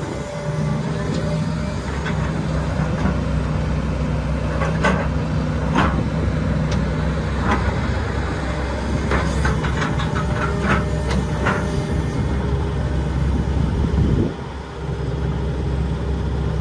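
Hitachi ZX135US-6 excavator's diesel engine running steadily under hydraulic load while the machine swings its upper structure and works the boom and bucket. Scattered sharp clicks and knocks come through in the middle, and the engine sound dips briefly near the end.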